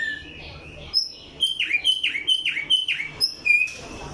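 A caged tumba yegua songbird singing: a short rising call, then a run of about five sweeping notes that drop in pitch, roughly two a second, mixed with sharp high chirps, ending a little before the finish.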